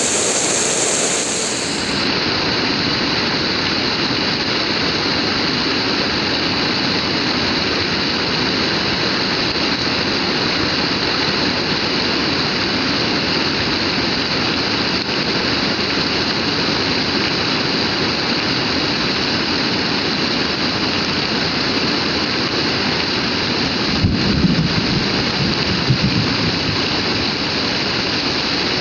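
Heavy rain pouring down steadily, with a brief low rumble near the end.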